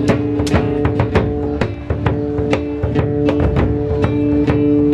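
Percussion group beating wine-barrel drums with sticks in a steady rhythm, about three sharp strikes a second, over sustained held tones.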